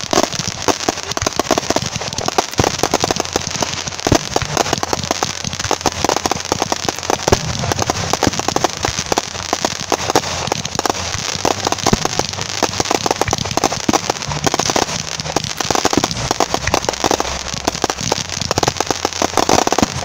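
Aerial fireworks: many shells bursting together into crackling gold and red stars, giving a rapid, continuous popping and crackling with no let-up.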